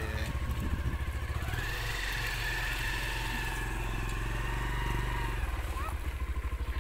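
Motorcycle engine running with a steady low pulsing beat as the bike pulls away, picking up revs about a second and a half in and easing off near the end.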